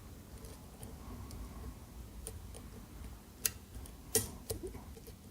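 Faint, irregular metallic ticks and clicks of a flag pick working the pins of a Basi BM dimple lock cylinder under tension. A sharper click comes about three and a half seconds in and another just after four seconds.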